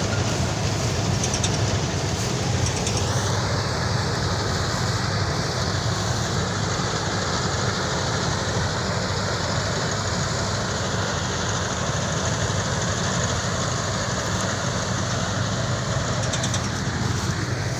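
Tractor-mounted combine harvester on a Mahindra 585 Yuvo Tech Plus tractor running steadily while it cuts and threshes rice: the diesel engine and harvesting machinery make a continuous, even mechanical drone.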